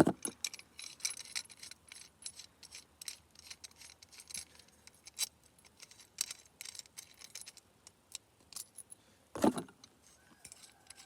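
Small metal parts clicking and clinking as an exhaust-tip clamp's bolts are unscrewed by hand and the clamp assembly pulled apart, with a sharp click at the start and a brief louder scrape about nine seconds in.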